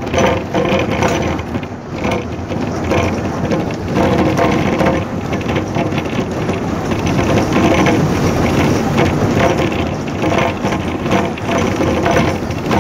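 Steady running noise inside a moving vehicle, with the engine, road noise and rattling of the body and fittings.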